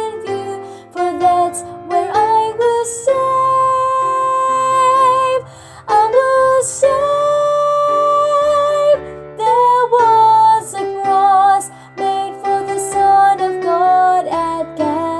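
Woman's soprano voice singing the melody of a gospel song, holding long notes with vibrato over instrumental accompaniment.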